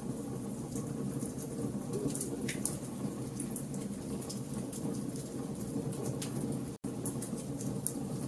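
Campfire of burning logs crackling: a steady low rush of flame with frequent sharp crackles and pops. The sound cuts out for an instant about seven seconds in.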